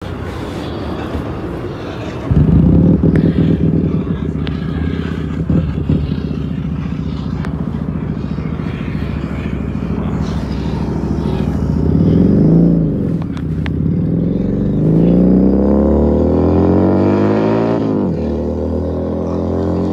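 Keeway SCR 250 motorcycle running through a Rez Speed aftermarket exhaust. The engine note gets louder about two seconds in, swells again past the middle, then climbs steadily in pitch for a few seconds before dropping sharply near the end.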